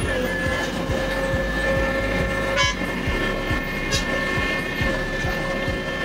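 Heavy asphalt-paving machinery running steadily: a constant whine over an uneven low pulsing, with two brief sharp clicks.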